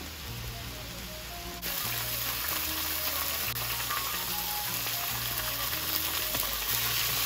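Food sizzling in a hot wok. About a second and a half in, the sizzle steps up to a louder, steady hiss as raw beef chunks fry, with soft background music underneath.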